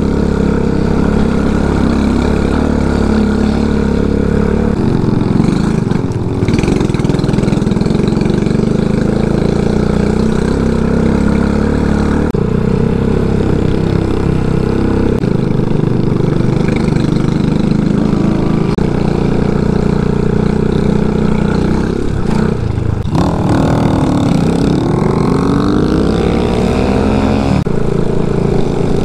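Single-cylinder motorcycle engine running under way, the 223cc CG250 thumper in the RPS Condor. Its note changes several times with throttle and gears, and near the end the pitch sweeps up and down.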